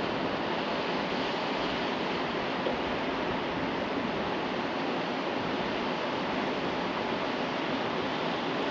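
Steady rush of moving river water.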